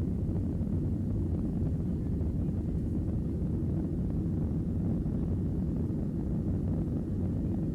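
Steady low rumble of an airliner's engines and airflow during takeoff, even throughout with no rise or fall in pitch.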